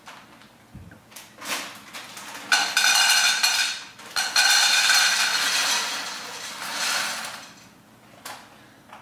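Stainless steel pot and lid handled on a gas stove's grate: metal scraping and clattering with a ringing edge. A few knocks come first, then a loud stretch of several seconds with a short break in the middle.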